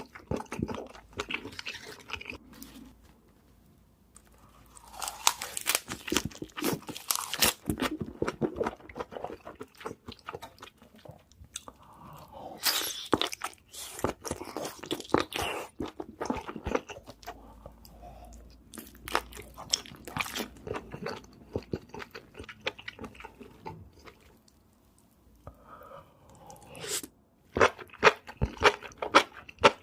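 Close-miked chewing and crunching of seafood, in bouts of crackly bites with quieter pauses between them; the sharpest, loudest crunches come near the end.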